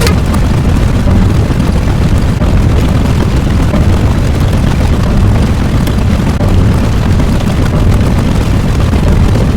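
Loud, steady, deep rumbling roar of a sound effect, with no separate blasts or pauses.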